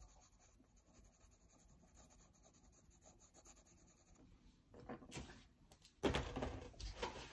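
Faint scratching of a green watercolor pencil shading on sketchbook paper, followed from about five seconds in by louder rustling and handling noises.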